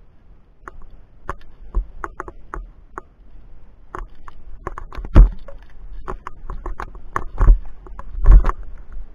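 Irregular clicks, knocks and scrapes of via ferrata climbing gear: carabiners on the steel safety cable, and handling against the rock. The loudest are a few heavier knocks about five, seven and a half and eight and a half seconds in.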